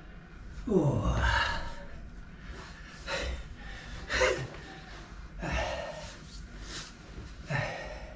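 A man breathing hard after finishing a set of push-ups: a loud gasp with a falling groan about a second in, then about five shorter, heavy breaths as he catches his breath.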